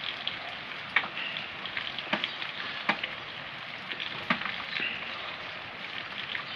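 Steady hiss of rain, with scattered sharp ticks of drops or drips about once a second.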